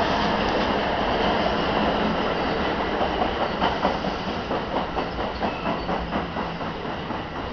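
New Jersey Transit multilevel passenger coaches rolling past as the train slows into the station: a steady rumble of wheels on rail that, about three seconds in, turns into a rhythmic clickety-clack over the rail joints at roughly two to three beats a second, easing off a little near the end.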